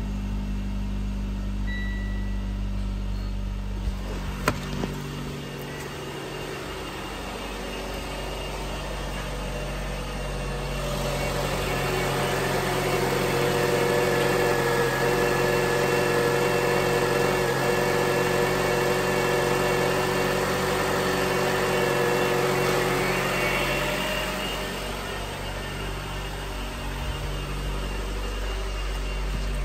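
2012 Mitsubishi Outlander's 2.4-litre MIVEC four-cylinder engine idling steadily. It is louder and carries a steady whine in the middle stretch, where it is heard at the open engine bay. A single sharp click comes about four and a half seconds in.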